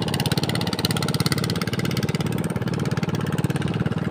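Small motorboat engine running steadily nearby, a fast even putter.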